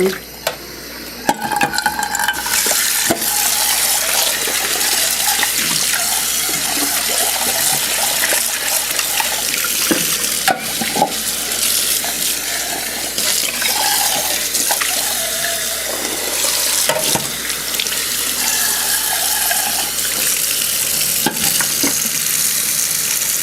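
A pan of water is emptied into a kitchen sink, then the tap runs hard into the sink, splashing, with occasional knocks of the pan or bowl against the sink. The water stops suddenly at the end.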